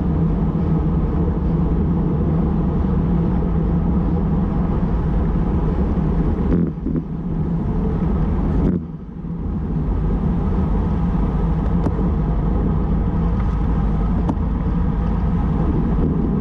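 Wind rushing over an action camera's microphone on a bicycle moving at about 45 km/h: a steady low rumble that drops away briefly twice, about halfway through.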